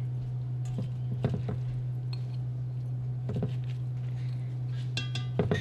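Hands scooping shredded raw red cabbage and pressing it into a glass jar: a few soft rustles and crunches, with a short ringing clink of glass near the end, over a steady low hum.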